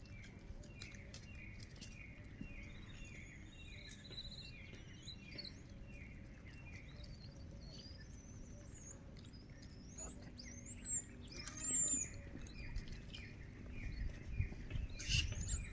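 Small birds calling in scrub: one short chirp repeated about three times a second, with higher chirps and whistling notes over it. A few low thumps come near the end.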